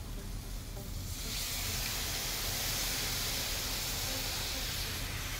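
Apple cider poured into a hot sauté pan of seared chicken breasts, sizzling with a steady hiss that starts about a second in as the liquid deglazes the pan.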